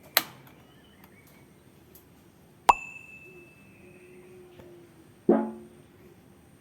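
Three sharp knocks about two and a half seconds apart, each followed by a brief ringing tone, the last ringing a little longer: parts or tools striking hard objects during a fan motor repair.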